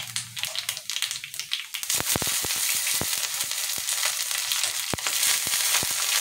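Nigella seeds sizzling and crackling in hot mustard oil on an iron tawa. About two seconds in, garlic cloves go into the oil and the sizzle grows louder and fuller, with scattered sharp pops.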